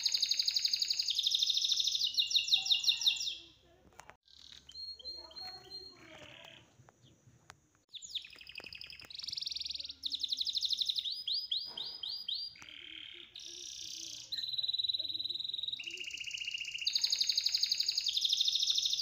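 High, bird-like chirping tones in rapid trills that break off about three seconds in, leaving a quieter stretch, and then return. The same run of chirp phrases comes back near the end, as in a looped backing track.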